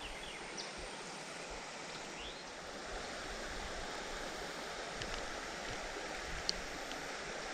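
Creek water running steadily, with a few faint ticks.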